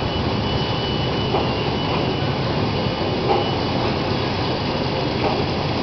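Paper bag making machine running: a steady mechanical noise.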